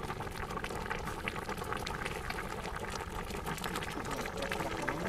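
Snakehead fish pieces simmering in a wok of dark palm-sugar caramel sauce, the thick sauce bubbling with a steady run of small irregular pops and crackles.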